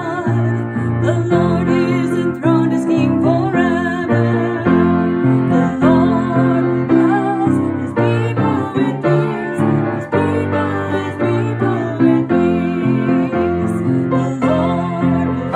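Grand piano played with both hands: an upbeat accompaniment of repeated chords under a moving melody, continuous throughout.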